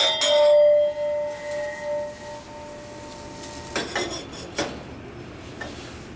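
A hard piece of furnace glassware is struck and rings with a clear, bell-like tone that fades over almost four seconds. The ring is cut short by a clink, followed by another knock.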